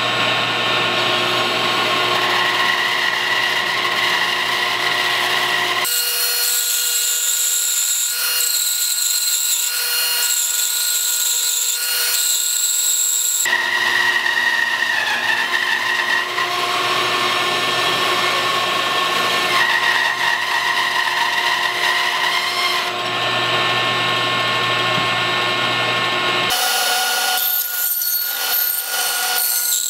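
Bandsaw running and cutting through a thick log of blue-stain pine, a steady whine with rasping wood noise. The sound changes abruptly a few times as passes are spliced together.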